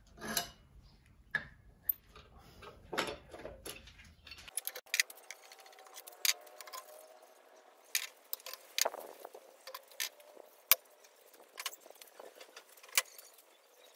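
Steel F-clamps and bar clamps being unscrewed and lifted off a steel lathe bed: scattered, irregular metallic clicks and clinks with a few short scrapes.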